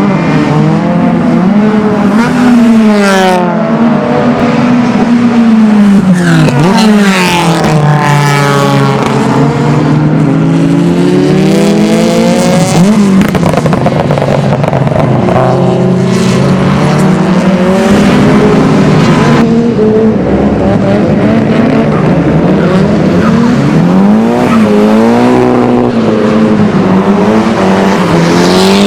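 Car engines on a race circuit, pitch rising and falling again and again as they rev up and shift through the gears, with several cars passing one after another.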